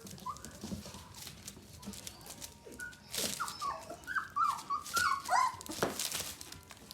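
Young Gerberian Shepsky (German shepherd–husky cross) puppies whimpering, with a quick run of short high-pitched squeaks and yelps in the second half, among scattered clicks and knocks.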